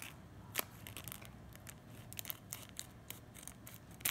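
Steel scissors snipping through a folded piece of thick plastic sheet: a run of small, sharp, irregular snips, the loudest about half a second in and again just before the end.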